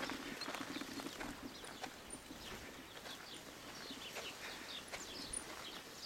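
Footsteps of someone walking on a dirt road, a repeating walking rhythm, with short high chirps scattered over it.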